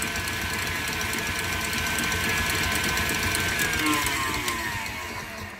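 Electric stand mixer with a wire whisk running at high speed, beating whipping cream in a stainless steel bowl as it firms up: a steady motor whine. About three and a half seconds in the mixer is switched off, and the whine falls away as the motor spins down.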